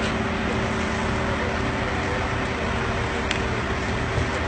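Steady low rumble of an engine or machinery running, with a faint steady hum and a single click a little over three seconds in.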